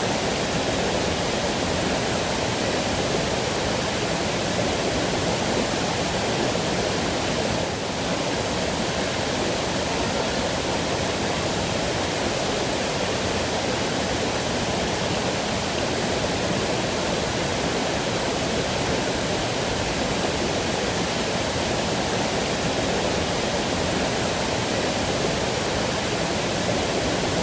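Waterfall pouring steadily: an even, unbroken rush of falling water, with one brief dip in level about eight seconds in.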